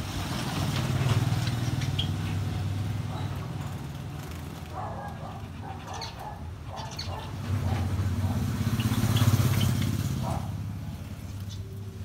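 A low motor rumble from passing traffic, swelling about a second in and again around nine seconds, with short chirps from caged finches over it.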